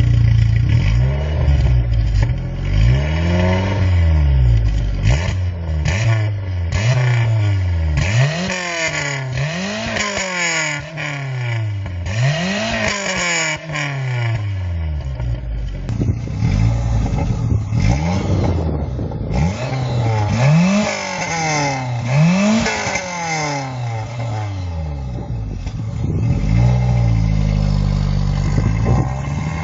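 VW Golf Mk2 engine revved again and again, each rev climbing in pitch and falling back, about ten times in a row, then running more steadily near the end.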